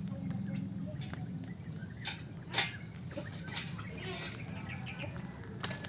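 Outdoor ambience: a steady high, evenly pulsing insect chirring over a low hum, with a few light knocks, the loudest about two and a half seconds in.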